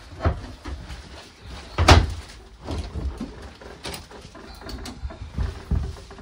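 A door inside a fifth-wheel camper clunking as it is opened, with one sharp knock about two seconds in, and footsteps thumping on the camper floor as someone walks down the hallway.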